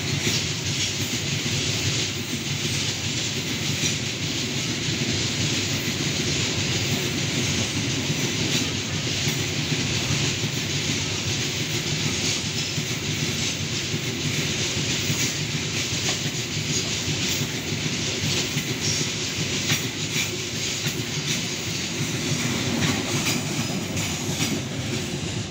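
Open coal wagons of a long Babaranjang coal train rolling past at a steady pace, the wheels clicking over the rail joints in a continuous steady rumble.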